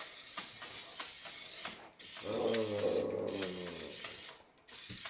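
Hexbug spider robot toy's small geared motor ticking and ratcheting as it walks. About two seconds in, a low, drawn-out voice-like moan lasts about two seconds.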